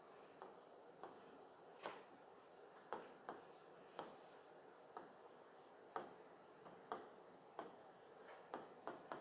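Faint, sharp ticks, roughly one a second, over near silence.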